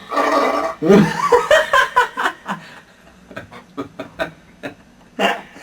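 Laughter: a person laughing in a quick run of short bursts, then trailing off into a few short, quieter pulses.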